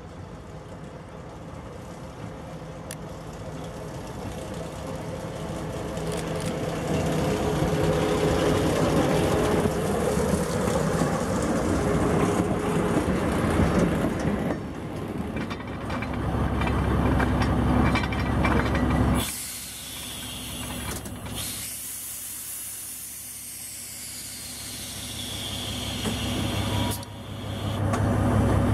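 Plymouth diesel switcher engine running as it hauls a caboose past, growing louder as it approaches, along with the train's passing rumble. After a sudden change, a steady hiss falling slightly in pitch, like air from the train's brakes, then the locomotive's engine hum rising again near the end.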